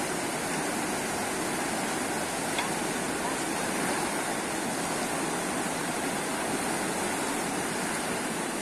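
Steady rush of a river in flash flood, a fast, churning torrent of muddy floodwater after rain in the mountains upstream.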